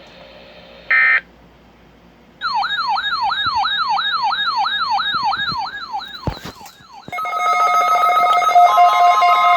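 Electronic siren-like alert tones: a short blip, then a falling, repeating wail about four times a second for a few seconds. After a click it gives way to a louder steady electronic alarm of several held tones that step in pitch.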